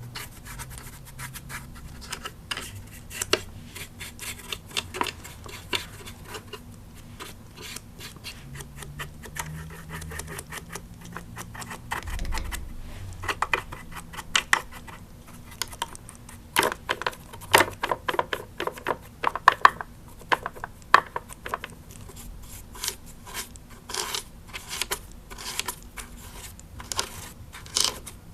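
A small brush's bristles flicking and scratching over a plastic animatronic Halloween decoration, switched off, in a run of quick short strokes. The strokes grow louder and sharper in the second half.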